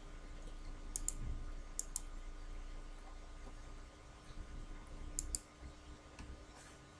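Faint computer mouse clicks, mostly in quick pairs: two about a second in, two near two seconds, and two about five seconds in, over a faint steady electrical hum.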